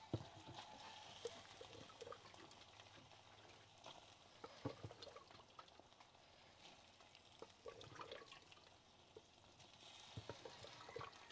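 Faint, scattered taps and soft plops of a wooden spoon scooping cooked beans out of a clay bean pot and dropping them into a clay cazuela of fried chorizo, over a faint sizzle.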